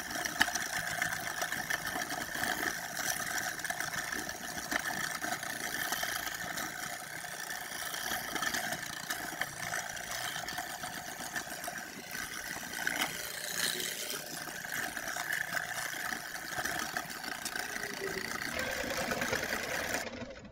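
Electric hand mixer running steadily on low speed, its beaters whirring through batter in a bowl, with beaters that are still hitting each other a little after being reseated. The motor switches off near the end.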